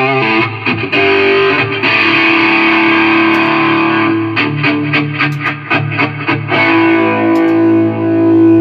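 Electric guitar played through a Line 6 Helix multi-effects processor, testing the unit after repair. Held chords ring out, then a quick run of short, choppy strokes in the middle, then a long sustained chord near the end.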